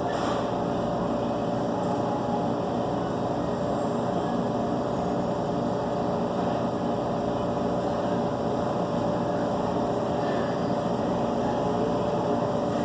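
A steady mechanical hum with a faint held tone, unchanging throughout.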